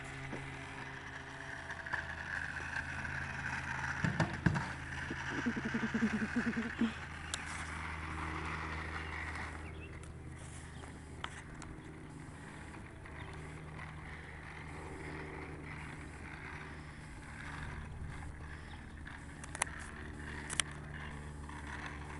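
RipStik caster board's wheels rolling over rough asphalt: a steady low rumble with a hiss that fades about halfway through, and scattered sharp clicks and knocks, several of them about four to seven seconds in.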